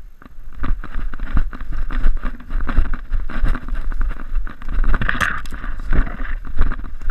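Rustling and scraping of undergrowth and conifer branches brushing against a body-worn camera as the wearer pushes through brush, full of crackling twig snaps and footfalls, with wind and handling rumble on the microphone.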